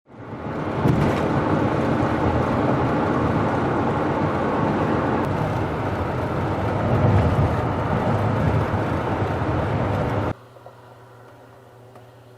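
A vehicle travelling on the road: steady rumbling road and wind noise. About ten seconds in it cuts off suddenly to a much quieter steady hum.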